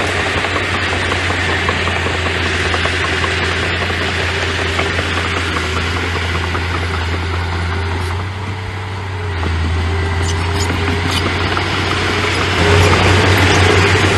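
Engine of a small earthmoving machine running steadily, easing off briefly about eight seconds in and getting louder near the end.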